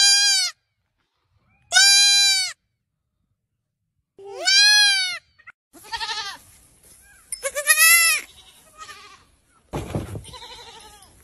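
Baby goats (kids) bleating: a series of high, wavering bleats, each under a second, with short pauses between. A brief low rumble comes near the end.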